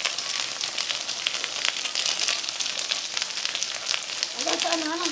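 Beef pieces, potato wedges and green vegetable stalks sizzling on a round non-stick tabletop grill pan: a steady hiss with many small crackles and pops of fat.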